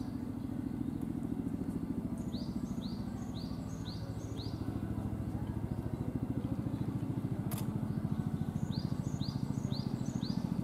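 A small engine runs steadily with a fast low throb. Over it a small bird sings runs of quick down-slurred chirps, about five to a run, and there is one sharp click past the middle.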